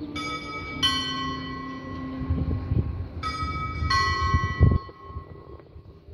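Bells striking a two-note ding-dong, a higher note then a lower one, twice, the second pair about three seconds after the first, each strike ringing for about a second. A low thump comes near the end.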